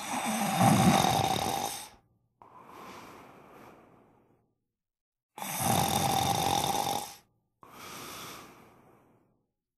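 A man snoring, two breaths: each is a loud snore of about two seconds followed by a quieter breath out that fades away.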